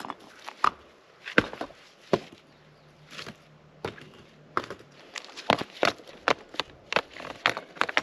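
Rocks of a campfire ring knocking and clacking against each other as they are lifted and set back in place by gloved hands; irregular sharp knocks, coming faster in the second half.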